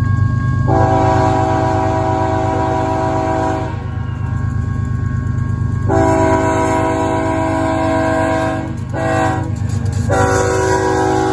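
A BNSF GE ES44C4 locomotive's Nathan K5HL five-chime horn sounds the grade-crossing signal: two long blasts, a short one, and a final long one starting near the end. Under it runs the steady, pulsing rumble of the approaching locomotive's diesel engine.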